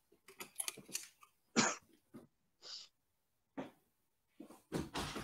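A run of short clicks and rustles as steel-tip darts are pulled out of a bristle dartboard and handled, with a sharper knock about one and a half seconds in that is the loudest sound.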